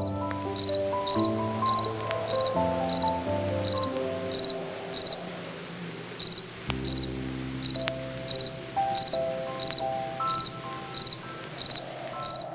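A cricket chirping in short, high, even chirps, roughly one every half second, with a gap of about a second near the middle. Slow, soft music with held notes plays underneath.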